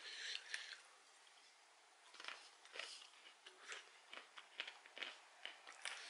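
Faint, irregular crunching and clicking of roasted peanuts being chewed with the mouth closed, a few crunches a second starting about two seconds in.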